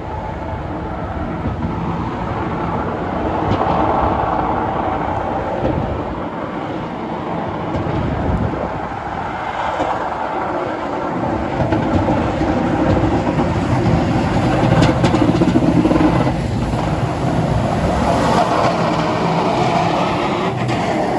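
Highway traffic passing below: a continuous rush of tyres and engines, swelling several times as vehicles go by.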